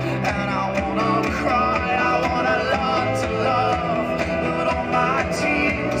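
A song with singing, played back through a bare Mage 12 Pro 12-inch speaker driver and a Sonic 44 driver in open air, with no enclosure and flat EQ, as a sound check of the raw drivers.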